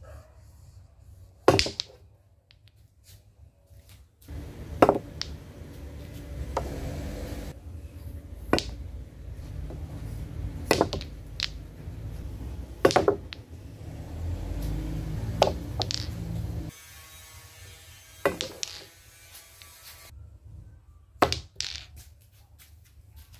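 Pool balls on a mini wooden billiard table: sharp clacks of the cue tip hitting the cue ball and balls knocking together, about eight knocks a couple of seconds apart. A low rumble runs under the middle of it, from about four seconds in to about seventeen seconds in.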